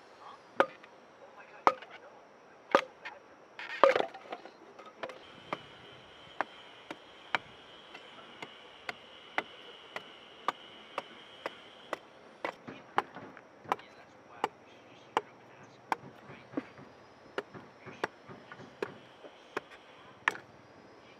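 Sticks of wood chopped into kindling with a machete-style blade, giving sharp wooden chops. A few heavy strikes come in the first four seconds, the loudest near four seconds, then lighter chops follow about one or two a second.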